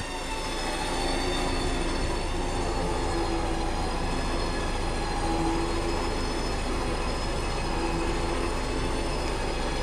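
Front-mounted 10,000 lb electric winch reeling in under load on the last wrap of its drum, pulling the Jeep forward: a steady motor-and-gear whine over a hum.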